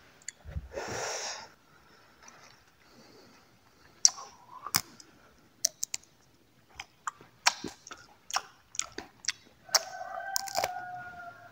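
Close-miked clicking and crunching of small dry fruit being chewed, in irregular sharp clicks, after a breathy exhale about a second in. A brief steady tone sounds near the end.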